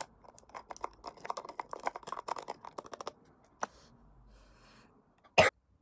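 A bottle's screw cap being twisted open in a quick run of small clicks for about three seconds, then one short sharp cough near the end, which is the loudest sound.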